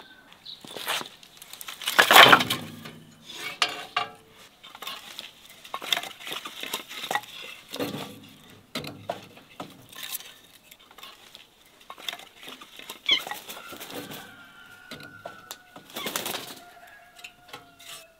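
Split firewood logs knocking and clattering against each other as they are handled and stacked, with a heavier wooden thud about two seconds in.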